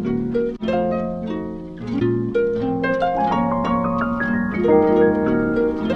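Instrumental music: a harp-like plucked-string melody of quick, ringing notes, with no drums or vocals.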